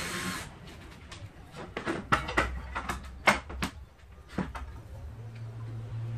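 A brief hiss, then a run of sharp knocks and clatters from tools and wood being handled against the board of a wooden table, the loudest about three seconds in.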